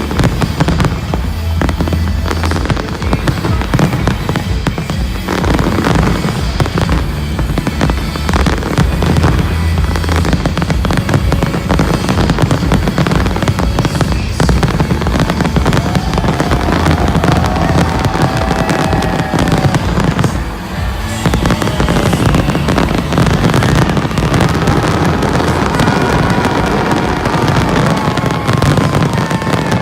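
Fireworks bursting and crackling densely and without pause, with music underneath.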